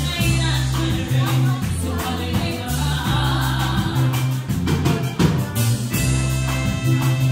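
Live band playing a song: a singer's voice over a drum kit keeping a steady beat and a strong bass line.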